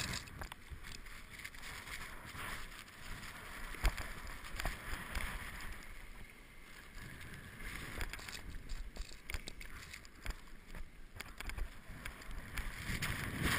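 Skis swishing through deep powder snow, the hiss swelling and easing in surges, with wind rumbling on the microphone. A single sharp knock about four seconds in.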